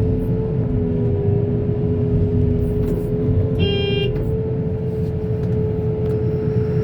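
Heavy diesel engine of a backhoe loader running steadily, a low rumble with a steady whine over it. A horn gives one short toot about three and a half seconds in.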